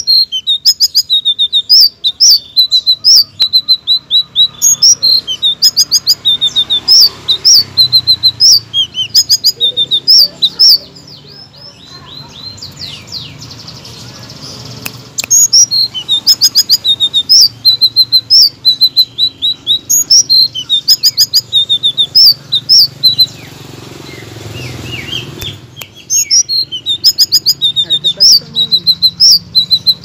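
Caged selendang biru songbird singing: a loud, fast run of high chirping and whistled notes. The song stops twice for a few seconds.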